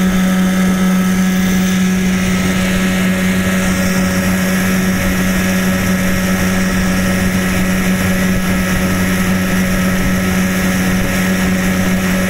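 1991 Johnson 9.9 hp two-stroke outboard motor running at a steady, unchanging speed, driving a small aluminium boat along on the plane.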